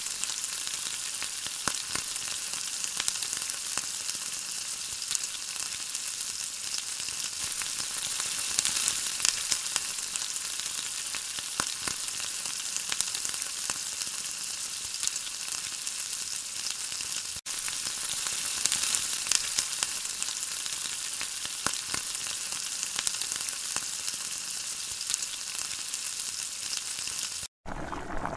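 Food frying in hot oil in a pan: a steady sizzle with scattered crackles, cutting out briefly twice.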